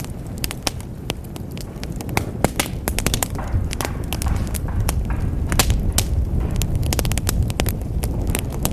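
Wood fire burning in a fireplace: dense, irregular crackling and sharp pops over the low, steady rumble of the flames.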